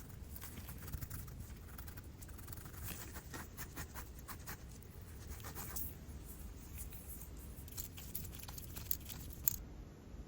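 Faint, irregular light scratching with many small clicks, from hand work on a small hard object.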